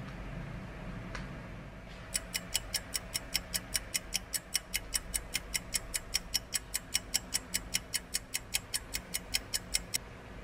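Rapid clock-like ticking, about four to five even ticks a second, starting about two seconds in and stopping abruptly near the end, over faint background music.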